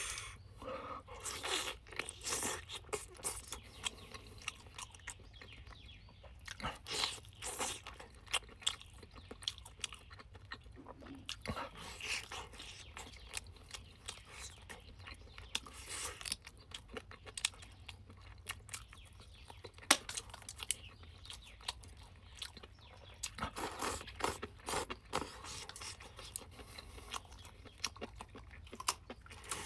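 A person chewing and crunching a meal of free-range chicken, with short, irregular crunches and clicks throughout.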